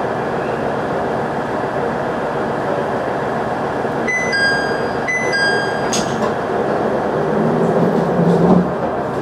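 KiHa 110 diesel railcar idling at a standstill, a steady engine hum heard inside the cab. About four seconds in, a two-note descending electronic chime sounds twice, followed by a click.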